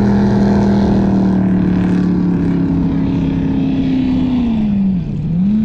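Speedboat engine running hard at speed, a steady drone. About five seconds in, the engine note dips briefly and climbs back as the boat swings through a turn.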